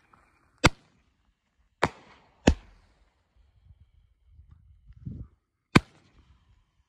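Big Fireworks Suicide Kings 5-shot roman candle firing, its stars breaking in the air with sharp bangs: three in the first two and a half seconds, a softer thump shortly before a fourth bang near six seconds, and a fifth bang at the very end.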